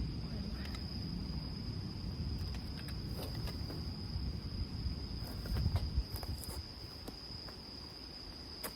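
Crickets chirring in one unbroken high, steady tone, over the low rumble of wind buffeting the microphone, with a few faint clicks.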